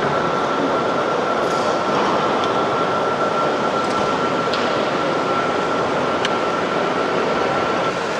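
O-gauge model electric trains running on a layout: a steady rolling noise with a thin, steady high tone and a few light clicks.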